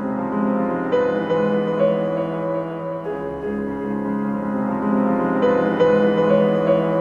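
Background music led by a piano, slow and gentle, with notes sustained over soft held chords.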